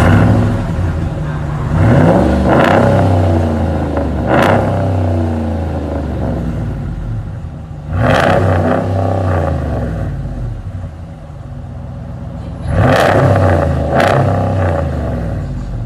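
Straight-piped Hemi V8 of a 2016 Ram pickup, with no mufflers in the exhaust. It idles and is revved in short blips about five times, the pitch jumping up and falling back to idle between them.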